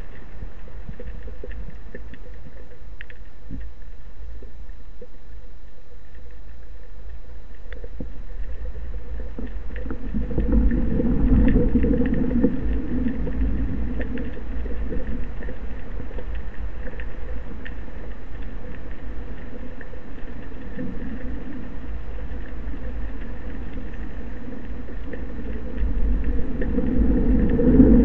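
Low underwater rumble of water moving around a speargun-mounted camera's housing, with a few faint clicks. It swells louder about ten seconds in and again near the end.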